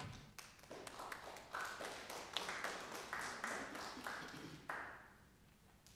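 Applause from a small congregation: several people clapping, building quickly and dying away about five seconds in.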